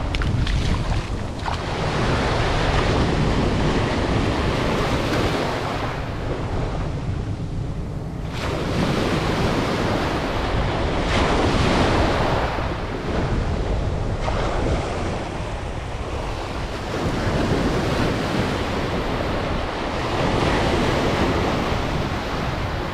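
Ocean surf breaking and washing up the sand, surging and ebbing every few seconds with a short lull partway through, with wind rumbling on the microphone.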